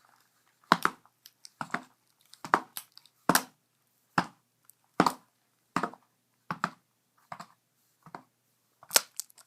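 A series of short, sharp clicks and taps, about one a second, from the opened tablet and its parts being handled and worked on.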